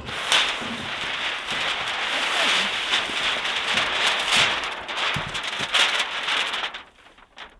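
Tyvek HomeWrap housewrap sheet rustling and crinkling as it is unrolled and held up against a wall: a steady crackly rustle that stops near the end.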